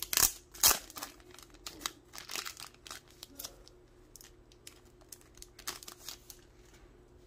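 Clear plastic bag crinkling and crackling as a toploaded trading card is handled and slid out of it, with the loudest crackles in the first second.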